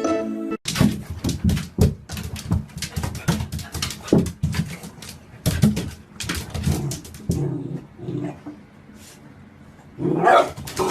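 A puppy making short vocal sounds among many quick clicks and knocks, with a louder cry about ten seconds in.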